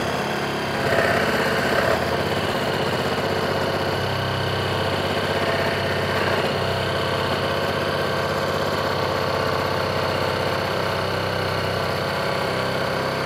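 Kobalt brushless one-handed reciprocating saw running at full speed, its blade cutting steadily through a thick wooden post.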